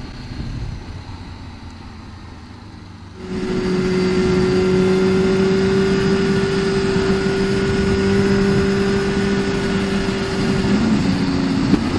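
Motorcycle riding, heard from the rider's camera: a quieter rumble for about three seconds, then a louder, steady engine drone with road and wind noise at a constant cruising speed. The pitch dips briefly near the end.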